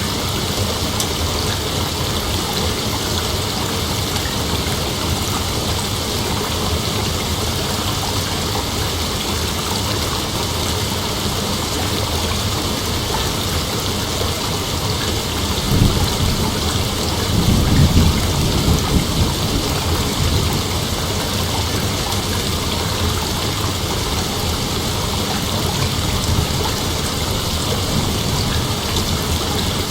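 Steady rain with a roll of thunder about halfway through that rumbles for a few seconds and fades back under the rain.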